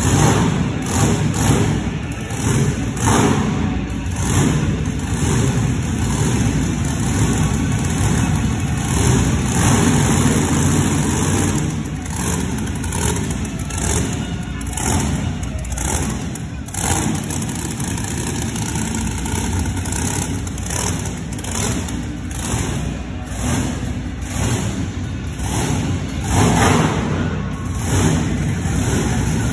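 Monster truck engine running and revving in an indoor arena, the noise rising and falling.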